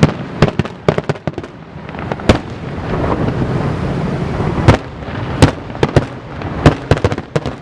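Aerial fireworks shells bursting in quick succession: many sharp bangs, with a denser, continuous stretch of rumbling noise in the middle before the separate bangs pick up again.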